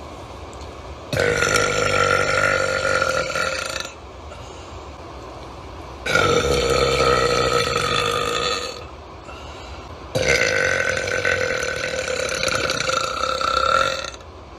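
Three long, loud burps from a person, each lasting about three seconds at a fairly steady pitch, a couple of seconds apart.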